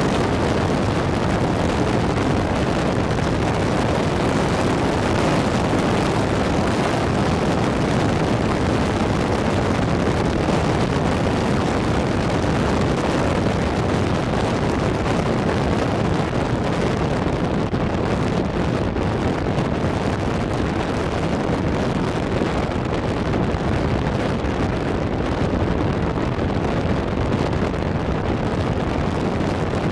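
Motorcycle riding at highway speed: a steady rush of wind buffeting an arm-mounted camera's microphone, with the bike's engine and road noise running underneath.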